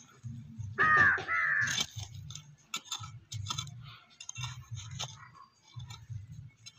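A crow caws twice in quick succession about a second in, the loudest sound. Around it, a small hand hoe chops and scrapes into dry, stony soil with scattered short clicks.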